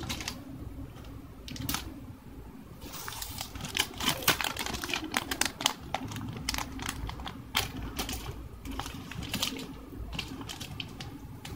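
Plastic packaging of a set of paintbrushes being pulled open by hand, crinkling and rustling with many irregular small clicks and taps.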